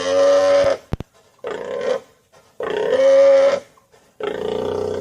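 Pigs squealing: four harsh, pitched cries of about a second each, with short gaps between them.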